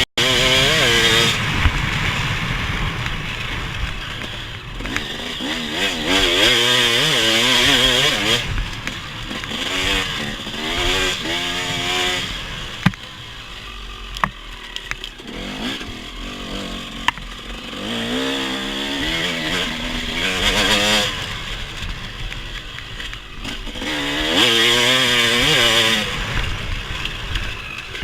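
Off-road vehicle engine being ridden hard, its revs climbing and dropping again and again as the throttle is opened and closed, with a few sharp knocks from the ride around the middle.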